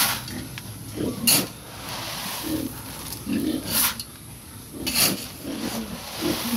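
Pigs grunting, with several short, sharp rattling scrapes as a metal scoop is dug into a drum of feed pellets.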